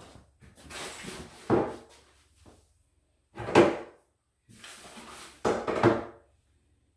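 Wooden closet-organizer pieces being handled: three scraping slides, each ending in a knock, like a drawer being shut.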